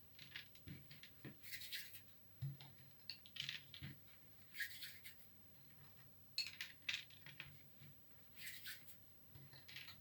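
Faint handling sounds of hands working cookie dough: about five short scratchy rustles as dough pieces are pressed onto slivered hazelnuts, with a few soft knocks as they are set down on the baking tray.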